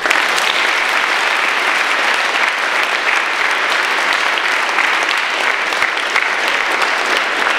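Loud applause from a hall full of schoolchildren: dense, even clapping that starts abruptly.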